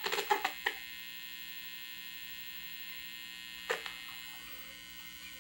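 Old black-and-white TV set running with a steady electric buzz from its sound, which the repairer suspects comes from a bad ground or a failing capacitor. A quick flurry of clicks near the start and one more click a little before the end come from the set's front-panel knobs being worked; the knob has a bad contact.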